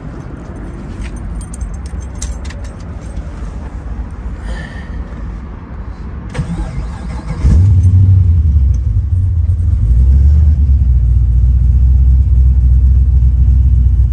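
A few clicks and handling noises, then about halfway through the car's twin-turbo 408 LS V8 fires up suddenly and settles into a loud, steady, deep idle.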